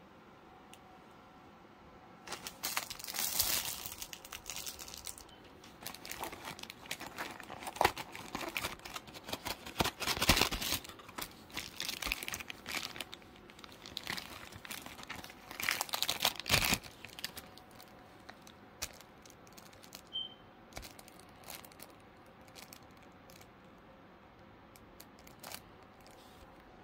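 Clear plastic packaging bags crinkling and rustling as they are handled, in several irregular bouts over the first two-thirds, then only a few faint taps and rustles.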